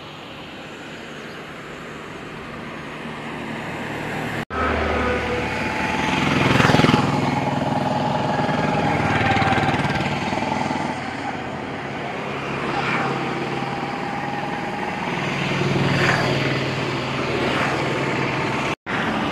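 Road traffic: vehicles driving past one after another, each rising and fading. The loudest pass comes about seven seconds in, and more follow later.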